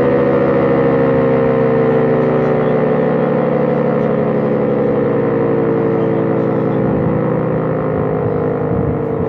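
Secomak GP8 siren winding down from full speed, its loud wailing chord sliding slowly and steadily down in pitch.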